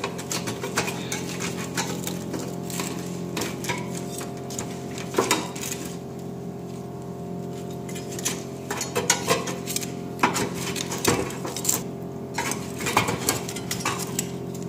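Metal tongs clinking against a wire rack and a metal serving platter as roasted chicken pieces are picked up and set down, in irregular clicks and clinks over a steady low hum.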